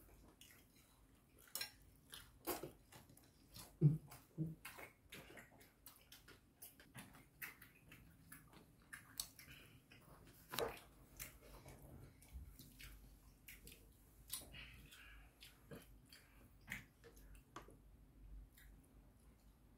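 Someone eating quietly: chewing and slurping, with a metal spoon clicking irregularly against a ceramic bowl. A brief low sound about four seconds in.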